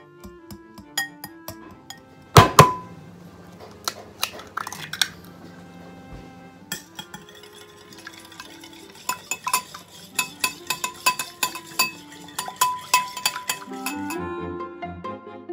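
Wire whisk clinking against a glass mixing bowl, with one loud clank a little over two seconds in. From about nine seconds in, the whisk beats a runny egg-and-milk mixture in quick, regular strokes. Light background music plays throughout.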